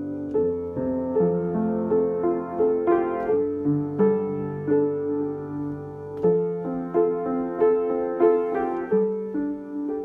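Solo piano playing a slow melody, a note or chord struck about every two-thirds of a second over held bass notes.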